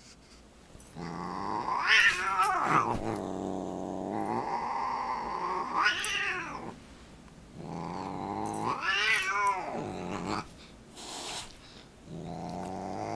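Siamese cat growling and yowling: three long, drawn-out low growls, each swelling into a higher wail that rises and falls, with a fourth starting near the end. This is a cat's warning growl.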